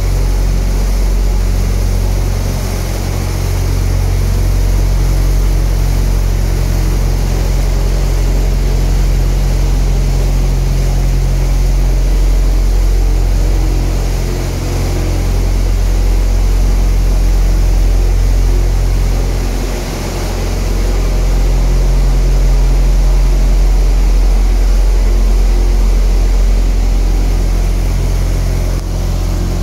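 An engine idling steadily with a low, even hum, briefly dipping a few times.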